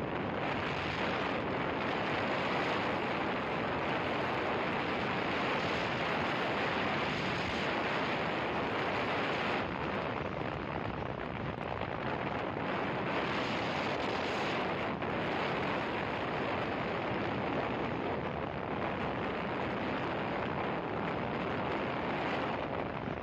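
Steady rush of wind buffeting the microphone of a camera on a motorcycle riding at speed, with road noise mixed in and no clear engine note.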